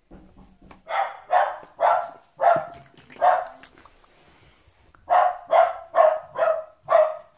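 A dog barking in two quick bouts of about five barks each, with a short pause between them.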